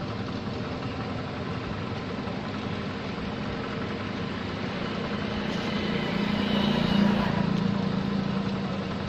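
A motor vehicle engine running steadily, growing louder to a peak about seven seconds in and then easing off, as if passing close by.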